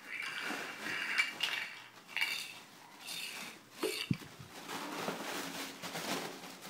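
Clattering and clinking of plastic toys handled by a baby on a tile floor, in repeated short strokes, with a low thump about four seconds in.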